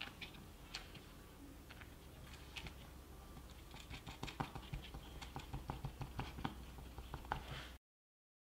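Faint small clicks and taps of fingers handling wires and a DC power jack in a plastic battery housing. They are sparse at first, then a quicker run of about four clicks a second from about four seconds in, and the sound cuts off suddenly near the end.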